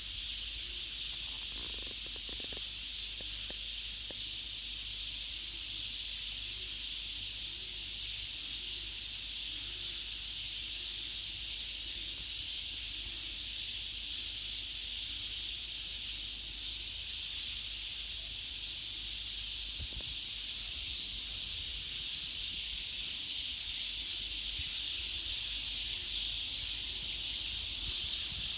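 A dense dawn chorus of sparrows chirping, so many at once that the calls merge into one continuous high chatter. A faint low rumble runs underneath.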